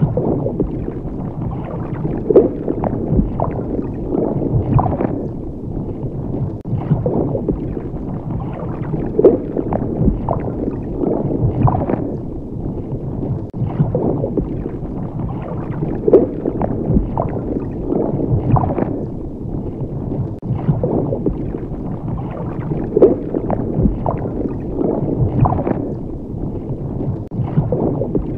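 Underwater ambience: a muffled, rumbling and gurgling wash of water that swells and ebbs every couple of seconds.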